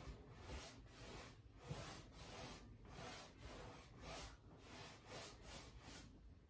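Faint swishing of a paintbrush's bristles rubbing back and forth over a canvas, laying on thinned oil paint, about two to three strokes a second.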